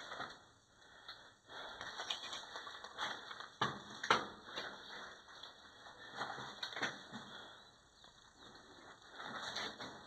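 Irregular rustling and scuffing, with two sharp knocks about three and a half and four seconds in.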